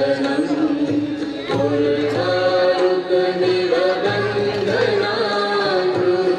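Music with a slow melody of long held, gently bending notes over low bass tones.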